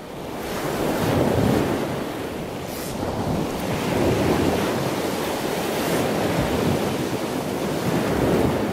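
Ocean surf: waves rushing and washing in, swelling and easing about three times.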